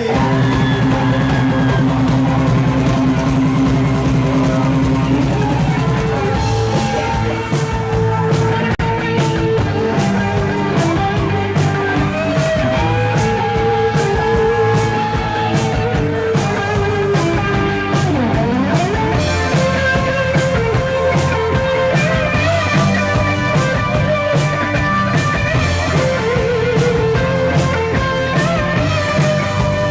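Rock music with electric guitar and a drum kit playing continuously, with a note bending down and back up partway through.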